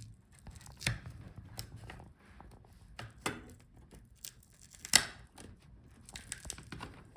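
Glue holding a laptop LCD panel to its plastic back cover cracking and tearing as the panel is pried free, with sharp snaps about a second in, past three seconds, and the loudest at about five seconds. The panel was glued in place instead of held by the original adhesive strips.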